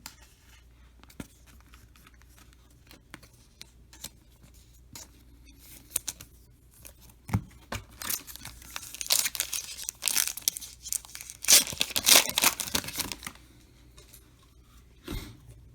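A trading-card pack wrapper being torn open and crinkled: a few light clicks of handling, then about five seconds of tearing and crinkling from around the middle, loudest near the end of it, followed by a single soft thump.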